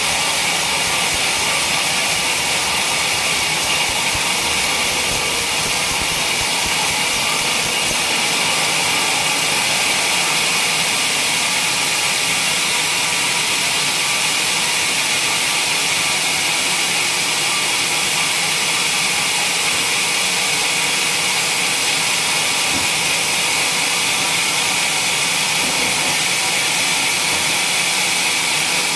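Sawmill running steadily, a loud even hiss and whine with a bright high band; the low hum drops away about eight seconds in.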